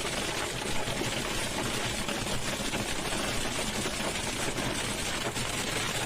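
Hailstorm: dense hailstones clattering down in a rapid, steady patter of countless small hits.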